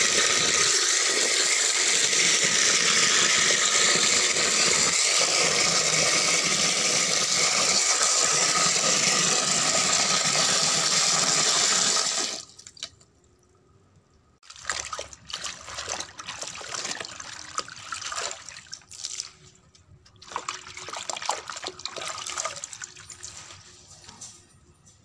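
Tap water pours steadily into a plastic bucket and stops sharply about halfway through when the tap is turned off. After a short pause comes irregular splashing and sloshing as water spinach leaves are washed by hand in the water.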